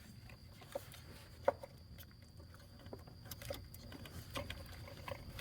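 Scattered light clicks and taps of hands and tools working at a coil pack in a Ford 5.4 3V engine bay, with one sharper knock about a second and a half in, over a faint low steady rumble.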